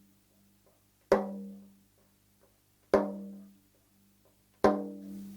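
Baile chino tamborcito, the small hand drum of the tamborero, struck with single strokes at a slow, even pace: three strokes about two seconds apart. Each stroke rings with a clear pitch and fades away before the next.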